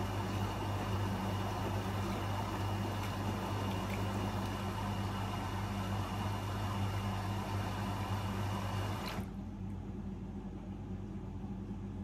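AEG Lavamat 76850 front-loading washing machine filling: water rushes into the drum from the inlet at the top of the door seal, over a steady low hum. About nine seconds in, the water shuts off abruptly, leaving only the low hum.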